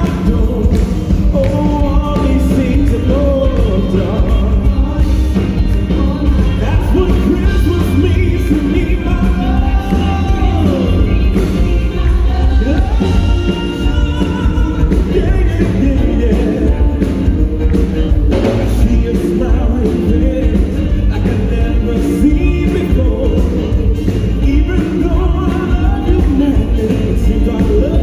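Loud music with singing over a heavy, steady bass beat.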